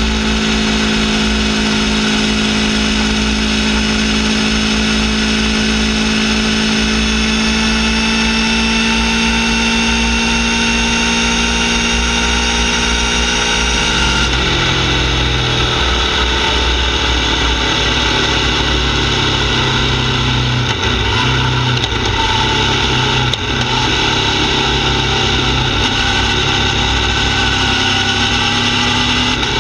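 Aprilia Tuono V4 R's V4 engine through a full titanium Akrapovic Evo exhaust with carbon-fibre can, heard from beside the silencer while riding: a steady, even exhaust note at cruise. About halfway through, the note drops suddenly and runs lower and rougher, with more rumble, as the throttle comes off and the bike slows.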